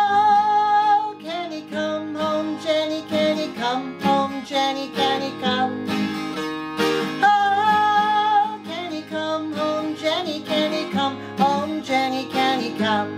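Twelve-string acoustic guitar strummed with a capo, with a woman singing the melody over it. She holds long notes at the start and again about seven seconds in.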